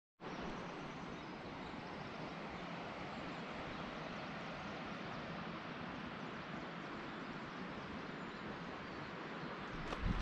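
Steady, even rushing outdoor noise with no distinct events, starting after a brief cut to silence. A couple of low knocks come near the end.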